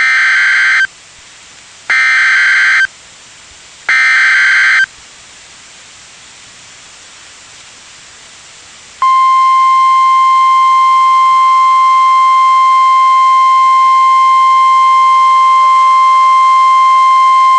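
NOAA Weather Radio Emergency Alert System tornado warning: three short screeching bursts of the SAME digital header, each about a second long and two seconds apart. A few seconds of faint radio hiss follow, then the steady 1050 Hz warning alarm tone starts about nine seconds in and holds.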